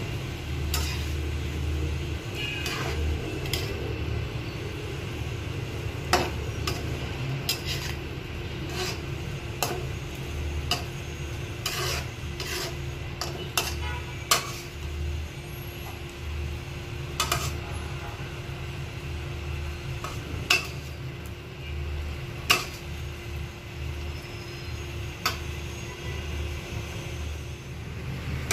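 A spatula stirring shrimp in a steel wok of simmering sauce, scraping the pan and knocking against it in irregular sharp clicks, over a steady low hum.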